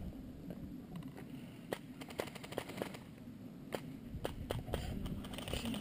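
Airsoft guns firing: a handful of short, sharp single shots at irregular intervals, fairly faint.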